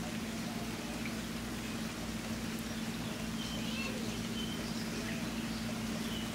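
Steady rainfall with an even patter, over a constant low hum. A few faint high chirps come through in the middle.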